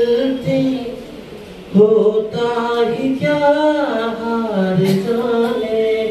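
A man singing solo into a microphone through a PA amplifier, holding long notes that slide between pitches, with a short break about a second in.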